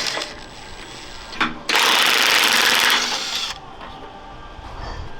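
Impact tool hammering in a rapid rattle for about two seconds, working fasteners loose on steel armour plate. A sharp metallic click comes just before it starts.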